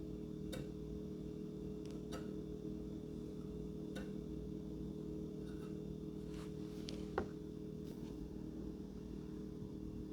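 Scattered light clicks and taps from small parts being handled during model-plane assembly, every second or two, with one sharper click about seven seconds in, over a steady low hum.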